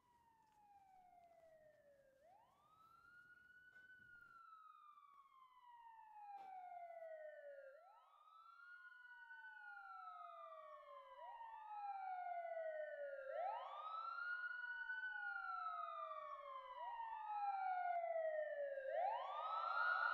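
Two police sirens on the wail setting, their slow rising-and-falling tones overlapping and growing steadily louder as they approach.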